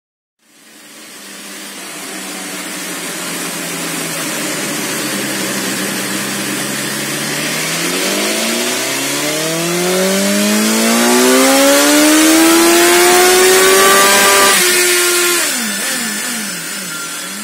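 2020 BMW S 1000 XR's inline-four engine making a full-throttle power run on a chassis dyno. It runs at a low, steady pitch for several seconds, then revs up in one long rising sweep for about six seconds. Near the top it drops abruptly and falls back to a lower, steadier note.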